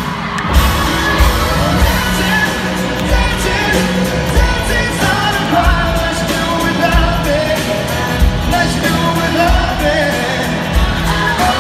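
Live pop-rock band playing with a lead vocal over a steady drum beat, recorded from the crowd in an arena on a phone microphone.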